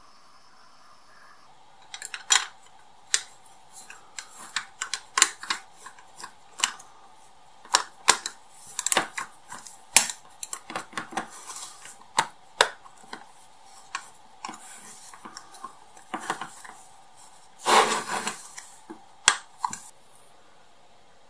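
Hard plastic parts of a model car clicking and tapping against each other as they are handled and fitted together, in irregular sharp clicks, with one louder scrape lasting about half a second near the end.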